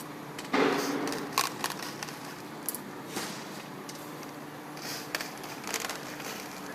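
Barstool parts being handled during assembly: a scrape or thump about half a second in, then scattered clicks and knocks.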